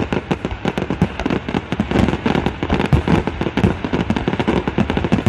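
Aerial fireworks going off in a dense, continuous barrage: many loud bangs and crackles each second, with no break.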